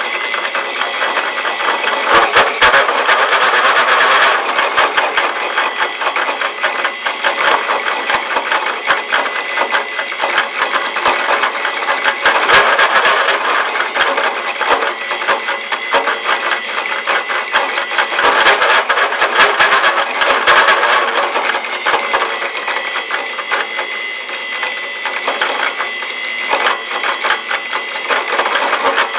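Homemade metal-turning lathe running under cut: loud continuous rattling and clattering over a steady high whine.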